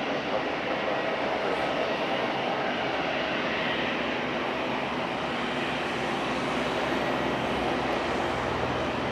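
Jet aircraft engines running, a steady rushing noise with a faint high whine; a low rumble grows stronger near the end.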